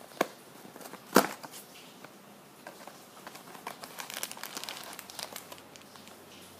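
A small cardboard blind box being handled: two sharp knocks about a second apart, the second the louder, then a few seconds of crinkling and crackling of the packaging.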